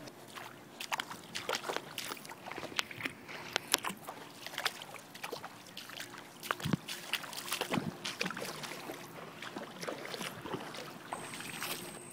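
Footsteps sloshing through shallow floodwater, a run of irregular splashes and sloshes.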